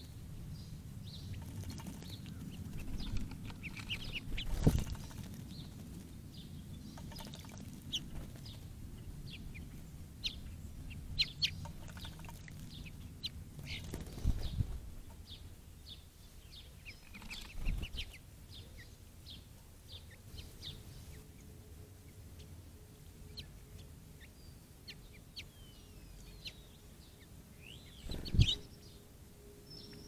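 Small songbirds chirping with many short high calls, while birds bathe in a shallow bird bath, giving a few brief louder bursts of splashing and fluttering, the loudest about five seconds in and near the end.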